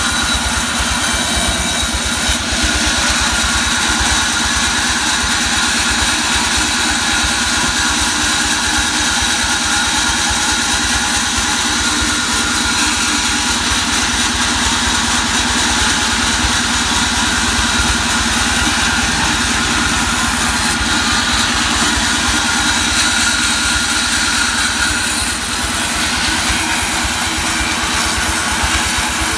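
Band sawmill running steadily while a mahogany log is fed through the blade, the saw's drive giving a fast, even low pulsing under the noise of the cut.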